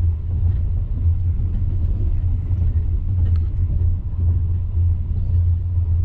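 Steady low rumble of a passenger train carriage in motion, heard from inside, with a few faint irregular clicks.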